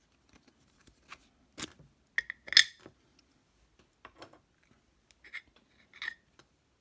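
Small metal clicks and clinks from the parts of a Titan T250 dimple lock being handled and put back together, with a few brief ringing clinks; the loudest comes about two and a half seconds in.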